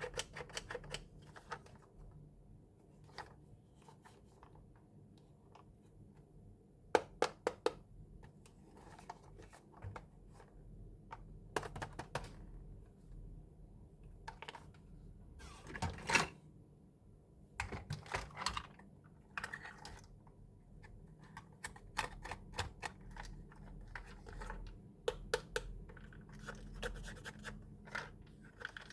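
Small plastic clicks, taps and rustles of a toy and its packaging being handled and unboxed, in scattered bursts. A rapid cluster of clicks comes about a quarter of the way in, and a louder scraping rustle comes just past the middle.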